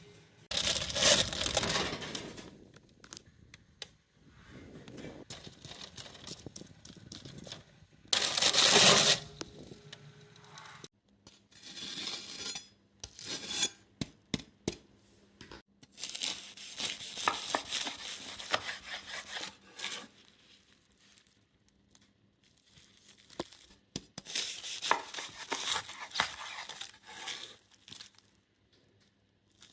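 Crisp, flaky puff pastry of a salmon Wellington crackling and crunching in repeated bursts as it is worked through, with light clicks and clinks among them. The loudest bursts come about a second in and again around nine seconds.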